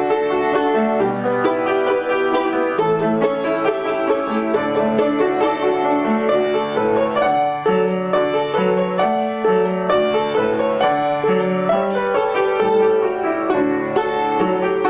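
Piano accompanying a plucked string instrument in a lively folk-tune arrangement, with quick, clearly picked notes over steady piano chords.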